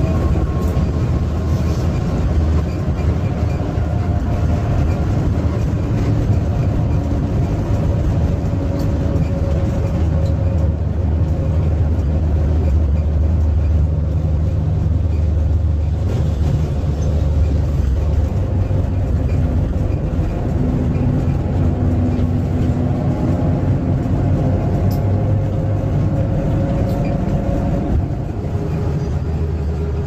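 Intercity bus diesel engine running at cruising speed on the highway, heard from the driver's cab: a steady low drone with a faint whine that drifts slowly in pitch.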